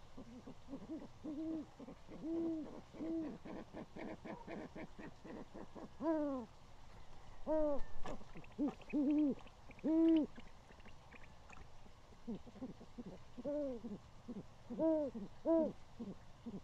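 Great horned owls hooting at the nest: short arched hoots, first a quick stuttering run, then louder single hoots in small clusters.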